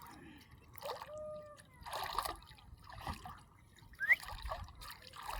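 Water splashing in short, repeated bursts, about one a second.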